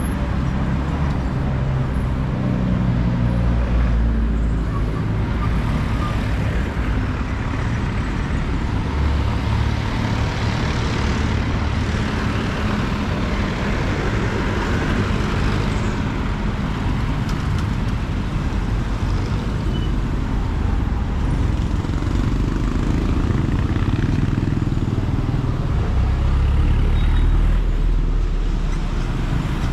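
Road traffic and vehicle noise: a low engine rumble with tyre and road noise, swelling a few times as vehicles speed up or pass.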